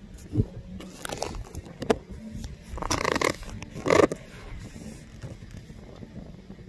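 Irregular scraping and rustling handling noise on a phone microphone, the loudest patches about three and four seconds in, over a low wind rumble.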